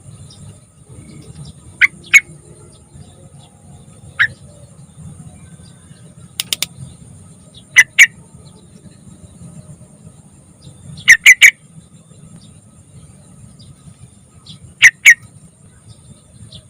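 Yellow-vented bulbul giving short, sharp call notes, mostly in quick pairs or triplets a few seconds apart, over a faint steady background hum.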